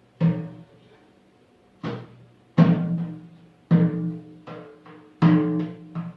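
A drum struck in a slow, uneven beat, about seven strokes, each ringing with a low, deep tone that fades before the next: beats given as a pulse for chanting.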